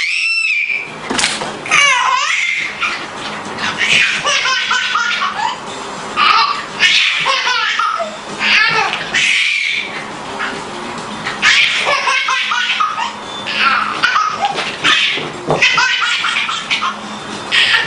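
Baby laughing in repeated bursts of giggles, each a run of quick rising and falling peals, again and again.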